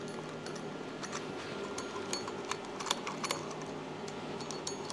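Light metallic clicks and clinks of small screws being threaded by hand into the stop plate on a propeller flange, a handful of ticks spread across a few seconds, over a faint steady hum.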